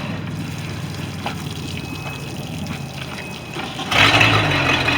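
MerCruiser 5.0 V8 goes quiet as reverse is tried, leaving water trickling and a low rumble; about four seconds in the engine is running loudly and steadily again. The cut-out is the shift interrupt (stutter) switch killing the engine, tripped by a faulty inner shift cable.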